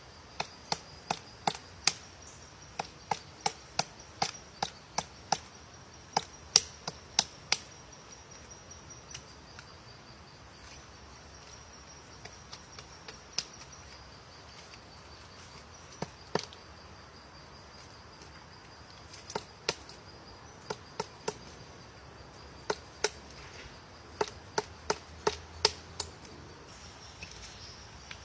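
Woodpecker pecking at wood: sharp single knocks at about two a second, in runs broken by pauses of a few seconds. A steady high insect buzz goes on underneath.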